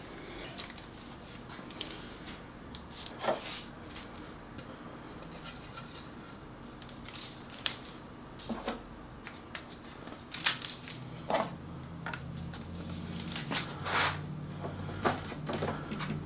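Scattered light clicks and knocks of PVC pipe fittings and a cardboard paper roll being handled and fitted into plastic brackets on the edge of a wooden workbench. A low steady hum comes in about two-thirds of the way through.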